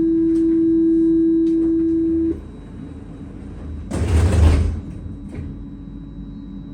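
Tram door-closing warning tone, one steady buzzing note for about two seconds that cuts off sharply, followed about two seconds later by a short loud hiss and thud as the doors shut.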